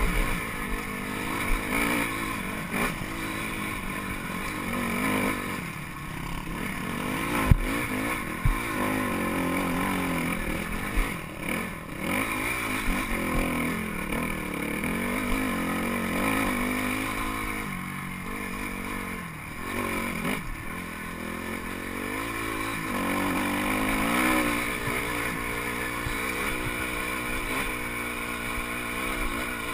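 Dirt bike engine running on a rough climb, its pitch rising and falling with the throttle. A few sharp knocks from the bike jolting over rocks, the loudest about seven and a half seconds in.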